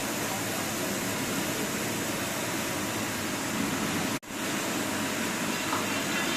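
Milling machine running through a 3D machining pass on metal, a continuous even noise with no distinct rhythm. It cuts out for an instant about four seconds in and then carries on unchanged.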